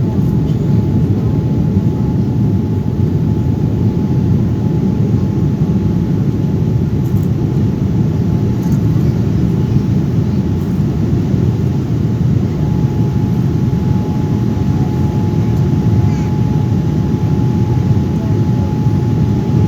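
Passenger plane cabin noise: a steady low rumble of engines and airflow heard from inside the cabin during takeoff, with a faint steady whine above it.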